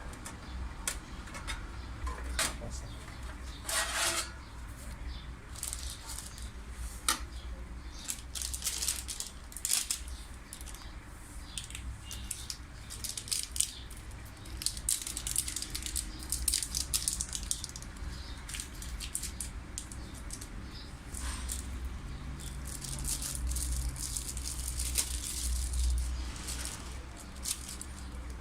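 Handling noise from unboxing: packaging rustling and crinkling with scattered light clicks and knocks as parts are handled, over a steady low hum.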